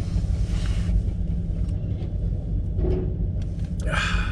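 Steady low rumble of an idling engine, with a short rustling burst about four seconds in.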